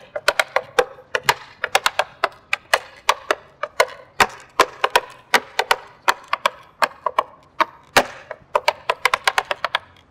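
Tap shoes with metal taps striking a wooden board in a quick tap combination made almost entirely of hops and shuffles. A rapid, uneven run of sharp clicks that stops abruptly at the end.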